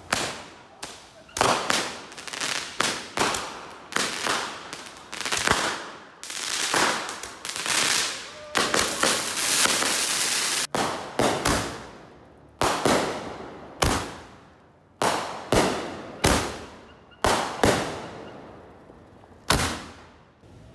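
Consumer fireworks and firecrackers going off in a street: a run of sharp, echoing bangs, with a dense stretch of rapid crackling in the middle that stops abruptly, then single bangs about a second apart.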